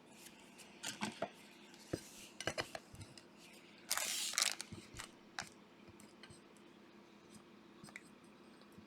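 Trading cards and packs being handled on a table: scattered light clicks and taps, with a brief rustle about four seconds in.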